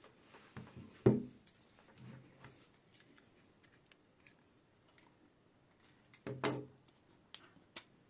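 Handling noise of small plastic and metal USB plugs, a charger and a USB tester: a few clicks and knocks, the loudest about a second in, another cluster past six seconds, and small ticks near the end.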